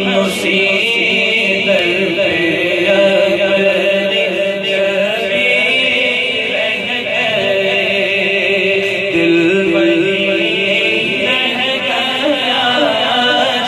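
A man singing Urdu devotional poetry (kalaam) into a microphone, in a long wavering melody with gliding notes, amplified through a PA system.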